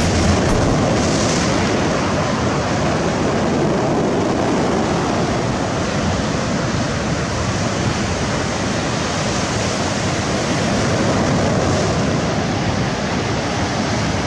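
Sea surf washing steadily, with wind on the microphone.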